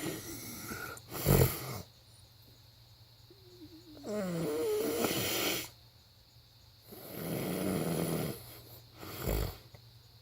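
A person snoring in sleep: four snoring breaths a few seconds apart. Two are short and sharp, one has a wavering pitched rattle, and one is a longer noisy breath.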